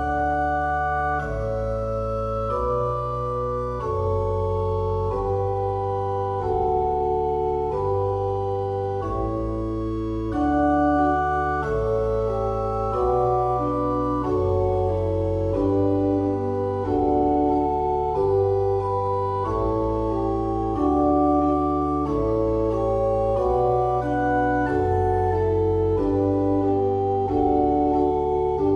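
Instrumental background music: held organ-like chords that change every second or so over a steady bass line.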